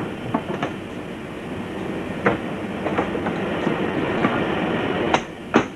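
A rumbling vehicle noise that grows louder, with irregular rattling clanks and two sharp knocks near the end.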